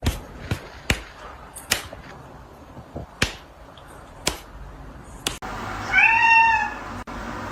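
A few sharp clicks or taps at uneven intervals over a faint background, then a single cat meow about six seconds in, rising and falling in pitch and lasting under a second.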